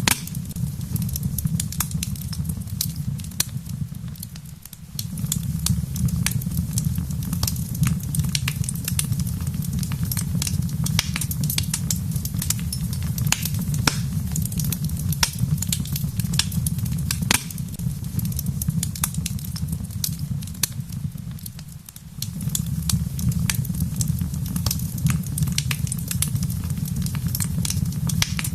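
Wood fire in a fireplace crackling, with many sharp irregular pops over a low steady rumble. The rumble drops away briefly twice, about five seconds in and again about twenty-two seconds in.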